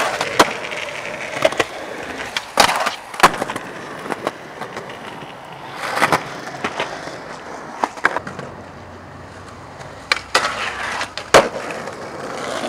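Skateboard wheels rolling on pavement, with a series of sharp clacks from the tail popping and the board landing, spread through the whole stretch, plus a few short scraping stretches of the board grinding on a rail and ledge.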